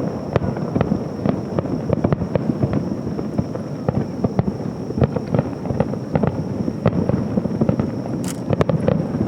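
Fireworks going off in quick succession: a dense run of overlapping pops and crackles, with a sharper bang near the end.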